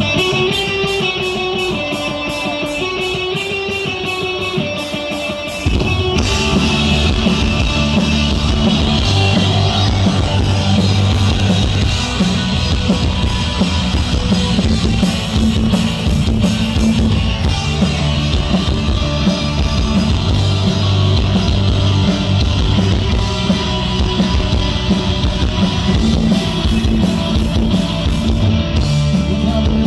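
Punk rock band playing live through a PA: a lone guitar picks an intro line, then about six seconds in the whole band comes in with drums and bass and plays on at full volume.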